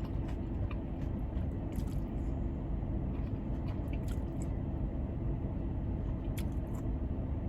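Steady hum of a car's air conditioning, with soft chewing and a few small clicks of eating.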